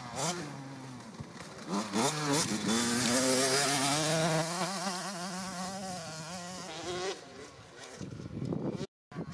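Small two-stroke minicross motorcycle engine revving hard under acceleration. Its pitch climbs and drops back twice in the first couple of seconds as it shifts up, then holds at high revs with a wavering note before fading near the end.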